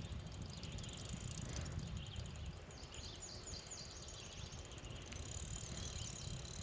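Quiet open-air ambience on a lake: a steady low rumble like wind on the microphone, with faint high chirps about three to four seconds in.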